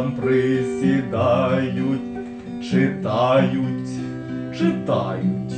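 Acoustic guitar strummed in chords, accompanying a man singing in Ukrainian.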